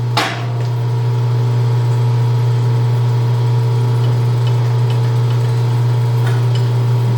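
Precision Matthews 1640 metal lathe running steadily, its spindle and motor humming with the tool out of the cut. A short knock comes right at the start.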